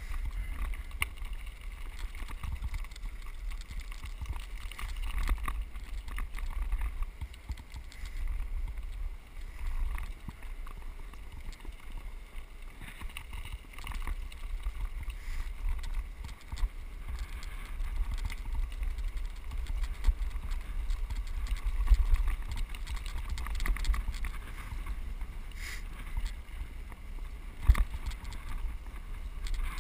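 Wind rumble on an action camera's microphone while a mountain bike rolls down a gravel road, with gravel crackling under the tyres and rattles from the bumps. There is a louder knock about two-thirds of the way in and another near the end.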